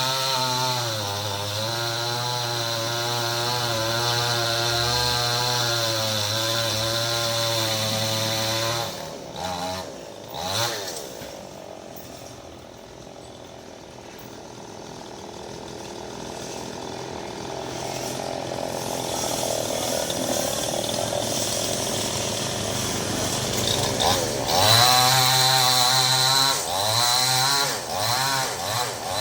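Maestro chainsaw running at high revs for about nine seconds, dropping back to a lower, quieter running level, then revving up again near the end.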